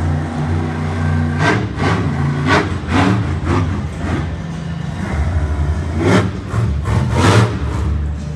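Monster truck's big V8 engine running and revving hard in an open arena: a steady low drone broken by repeated sharp, loud bursts as the throttle is stabbed.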